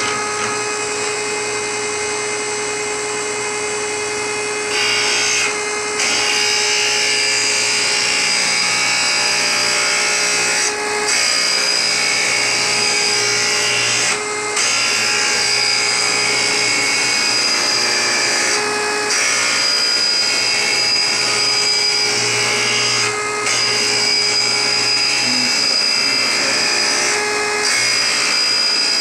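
Blade-grinding machine grinding the edge of a guillotine blade: a steady, loud grinding hiss with a constant whine, dipping briefly every few seconds.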